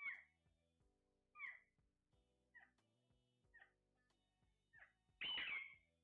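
Caged parakeets calling: short two-note squawks about once a second, then one louder, longer screech with a falling pitch about five seconds in. Faint background music underneath.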